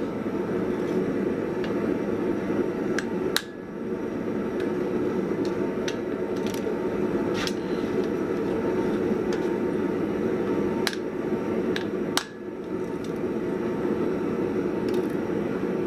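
Steady rushing of a coke forge's air blower, broken by a few sharp metallic clicks.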